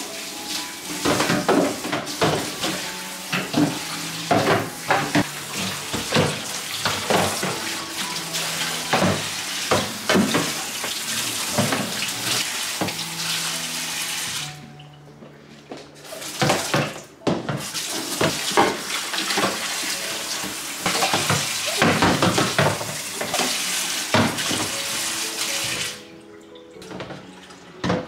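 Tap water running and splashing onto plastic freezer drawers being rinsed in a kitchen sink, with knocks of the plastic against the basin. The water stops for about a second and a half midway and again near the end. Soft background music plays underneath.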